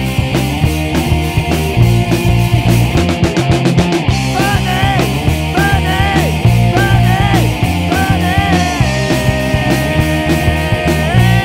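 Rock band playing: drum kit, bass and guitar, with a quick drum fill about three seconds in. A lead guitar line with string bends follows and ends on a long held note that bends up near the end.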